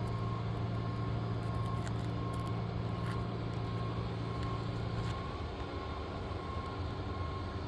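Steady low machine hum, like a motor or engine running nearby, that drops out about five seconds in, with a few faint light clicks.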